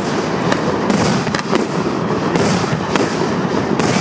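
Aerial fireworks display: shells bursting overhead with a series of sharp bangs and crackles, several in quick succession.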